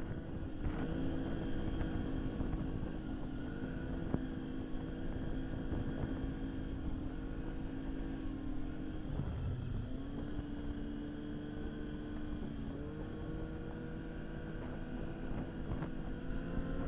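Arctic Cat snowmobile engine running steadily at speed along a trail, its pitch dropping and climbing back a few times, over a constant rush of track and wind noise.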